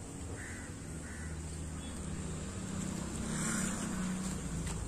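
A crow cawing several times, the loudest call about three and a half seconds in, over a steady low hum.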